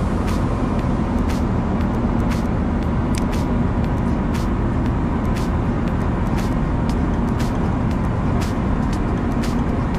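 Boat engine running steadily, with sharp ticks repeating evenly about once a second.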